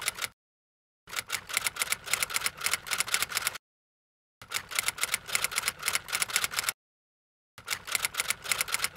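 Typewriter typing sound effect: rapid key clicks in runs of about two and a half seconds, broken by short gaps of dead silence.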